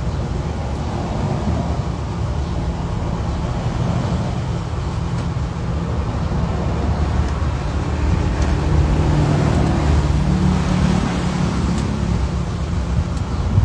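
A motor-vehicle engine running: a steady low rumble that grows louder from about eight seconds in.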